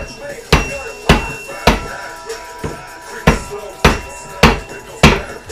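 Hammer striking metal repeatedly, about two blows a second, each blow ringing briefly.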